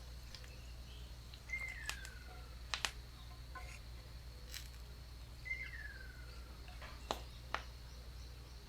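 Rural outdoor ambience: a bird gives a slurred whistle falling in pitch, twice, about four seconds apart, over a steady faint high insect drone. Several sharp clicks are scattered through it.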